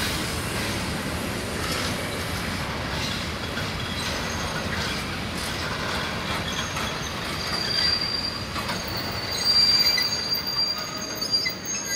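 Freight train of open-top wagons rolling past on the rails with a steady rumble. A high-pitched wheel squeal joins about four seconds in and grows louder over the last few seconds.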